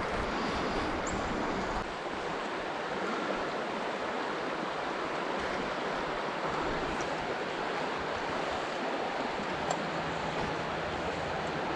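River water rushing over a riffle: a steady, even rush of flowing water.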